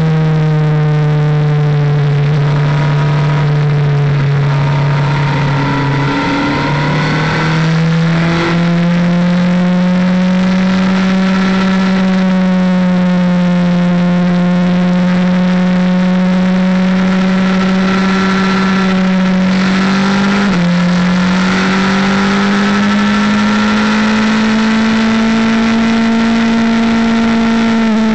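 Motorcycle engine at high revs recorded onboard at speed, a steady drone that rises slowly in pitch over a rush of wind noise. About two thirds of the way through the pitch dips sharply as it shifts up from third to fourth gear, then climbs again.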